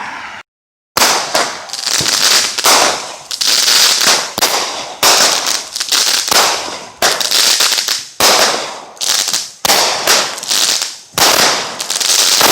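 Fireworks going off in a rapid, continuous run of sharp bangs and crackles, after a moment of dead silence about half a second in.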